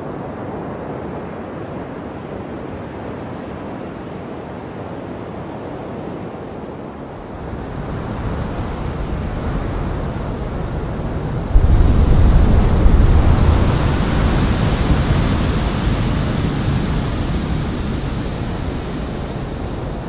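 Roar of heavy ocean surf, a steady rushing wash. It swells louder about seven seconds in, then jumps suddenly into a deep rumbling crash at about eleven and a half seconds, as a giant wave breaks, and slowly dies away.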